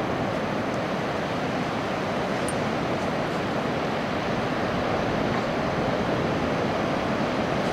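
Surf breaking on a sandy beach: a steady rushing wash of waves.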